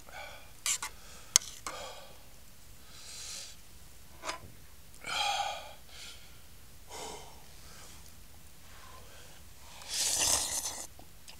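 A person eating and breathing noisily: a few light clicks in the first two seconds, then two longer, loud rushes of breath about five seconds in and near the end.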